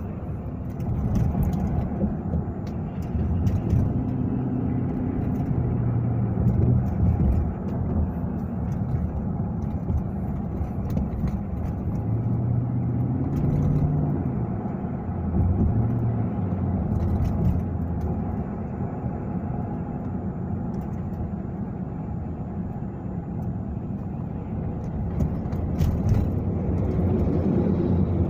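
Steady low rumble of a car's engine and tyres on the road, heard from inside the moving car's cabin, with the engine note shifting a little up and down.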